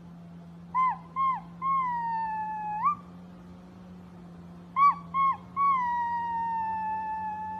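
A high howling voice, heard twice: each time two short yips, then one long drawn-out howl that slowly falls in pitch, over a steady low hum.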